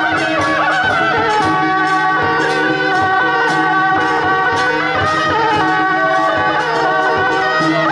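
Traditional Taiwanese temple-procession band music played live: suona (double-reed horns) holding a melody over drums, gongs and cymbals struck in a steady stream.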